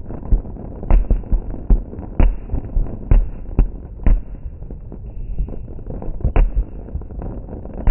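Aerial fireworks bursting: a continuous rumble of many distant bangs, broken by about six sharper, louder booms, the strongest about a second in, at two seconds and near six and a half seconds.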